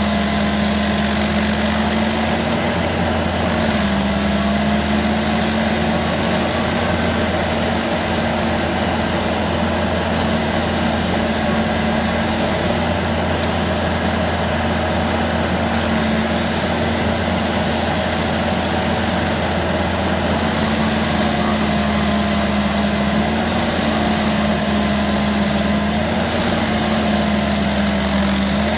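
Rayco RG74 tracked stump grinder's diesel engine running steadily under load as the cutter wheel grinds into a tree stump, throwing wood chips. The engine note dips briefly a few times as the wheel bites into the wood.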